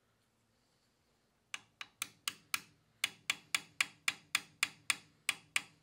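Light hammer taps on a brass punch, drifting a rear night sight sideways into the dovetail of a Kriss Sphinx SDP pistol slide. The taps start about a second and a half in and come at about four a second, with one brief pause just under three seconds in.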